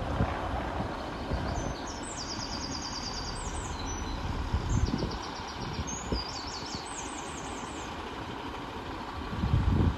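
Class 150 Sprinter diesel multiple unit running on its underfloor diesel engines, a steady low rumble as the train moves slowly along the platform. Wind gusts buffet the microphone, swelling about five seconds in and again near the end, and rapid high chirping trills come and go through the middle.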